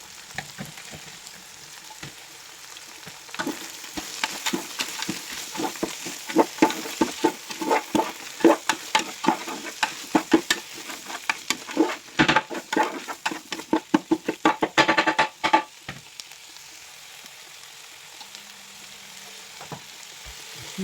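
Fried rice sizzling in a pan, with a spatula repeatedly scraping and knocking against the pan as the rice is stirred. The stirring starts a few seconds in and stops about three-quarters of the way through, leaving the steady sizzle.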